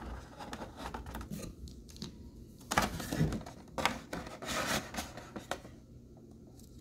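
A plastic wireless car charger cradle being handled and set into a moulded plastic packaging tray: irregular clicks, taps and scraping, loudest about three seconds in.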